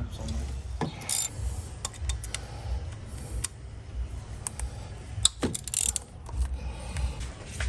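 Hand ratchet clicking in irregular runs while T30 Torx bolts are backed out, with scattered metallic clicks of tool handling over a low rumble.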